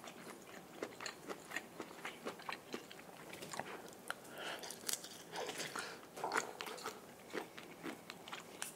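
A person chewing a mouthful of shrimp and noodles close to the microphone: many soft, irregular mouth clicks.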